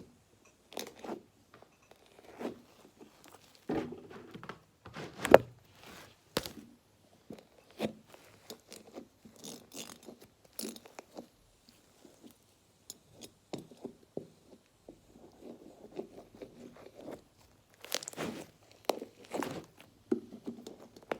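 Slime smoothie being squished and kneaded by hand close to a microphone, giving irregular crunchy crackles and squelches.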